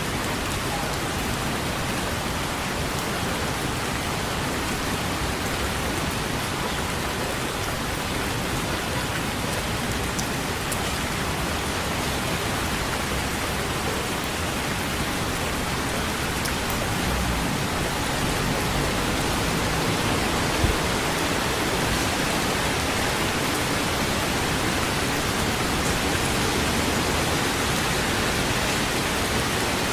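Steady rain falling, an even hiss with no let-up, and one sharp tap about two-thirds of the way in.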